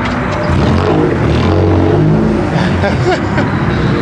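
A car engine revving, held up for about two seconds from about half a second in.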